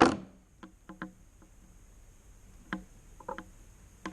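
A cutter snaps through the bunched Cat5 wires with one sharp snip right at the start, trimming them straight across. It is followed by a few faint scattered clicks of the cable and tool being handled.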